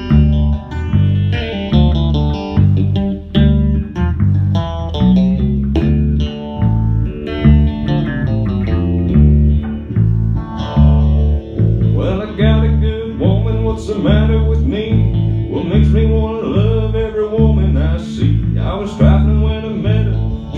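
Electric guitar and electric bass playing an instrumental break in a country-blues song, with no drums. The bass keeps a steady repeating line under a guitar lead, and about halfway through the guitar moves to repeated bent notes that slide up in pitch.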